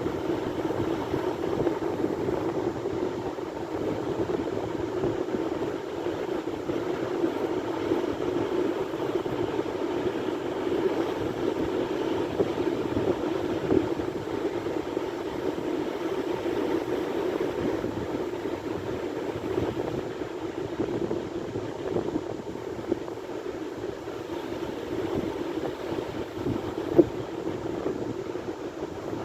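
Sea waves: a steady, continuous wash of surf with no distinct breaks between waves.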